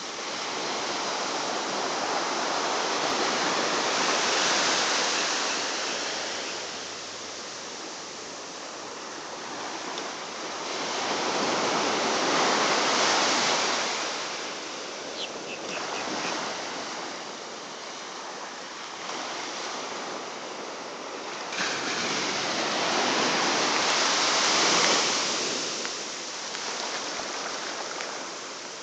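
Ocean surf breaking and washing up a sandy beach, swelling and fading in three slow surges.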